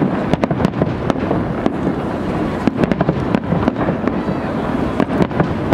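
Aerial fireworks display with shells bursting in quick succession. Many sharp bangs a second overlap a steady rumble.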